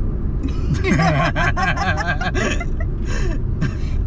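A person laughing in quick pulses for about a second and a half, over the steady low rumble of a car cabin.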